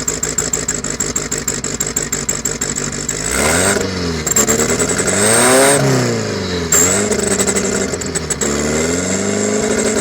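1981 Toyota Hilux engine idling and revved several times, with a bolt-on turbo whistle in the exhaust adding a thin high whistle that rises with each rev.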